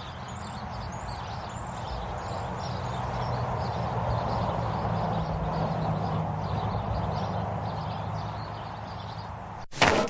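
Cartoon car sound effect: a small car's engine running steadily as it drives, swelling and then fading, with birds chirping faintly above it. It cuts off abruptly near the end.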